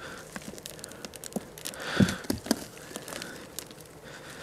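Hands tearing apart a wet, root-bound potato root ball in a plastic wheelbarrow. Roots rip and damp soil crumbles, with scattered crackles and a soft knock about two seconds in.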